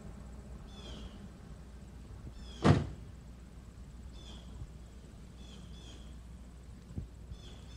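A bird chirping in short repeated phrases over a low outdoor rumble, with one loud thump about two and a half seconds in and a faint knock near the end.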